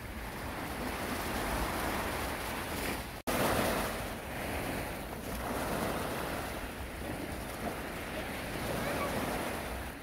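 Small waves breaking and washing up onto a sandy beach, the surf swelling and easing, with wind rumbling on the microphone. The sound cuts out for an instant about three seconds in.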